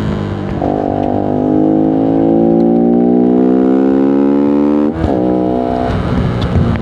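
Voge 125R's single-cylinder 125 cc engine pulling through a gear, its pitch climbing steadily for about four seconds, then dropping sharply on an upshift about five seconds in and running on at a steady cruise.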